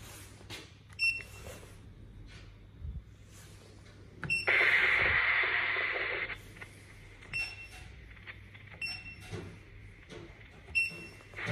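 Video intercom indoor monitor giving short, high electronic beeps at irregular intervals. About four and a half seconds in, a loud rush of hissing noise lasts about two seconds and fades, the loudest sound here.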